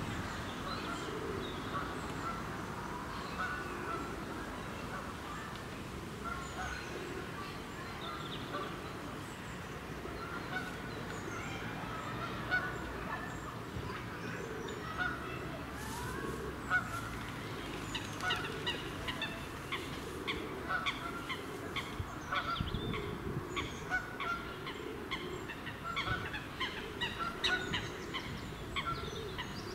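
Geese honking repeatedly on a pond, many short calls one after another, getting busier from about halfway through.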